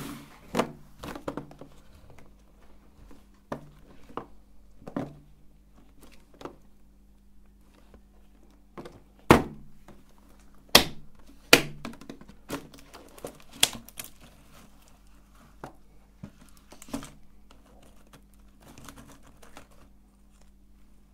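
Clicks, knocks and light crinkles of a clear plastic tub of wafer ice cream cups being handled and opened, with a few loud plastic snaps in the middle.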